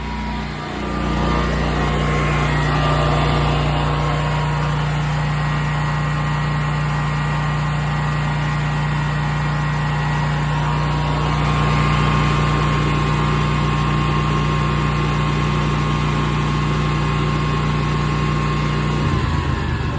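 Westinghouse 20,000-watt portable generator's engine running steadily. Near the end its pitch drops as the engine slows toward low idle.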